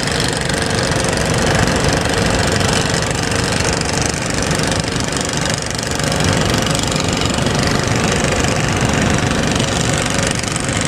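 A boat engine running steadily, with a fast low pulsing, under a dense rushing noise.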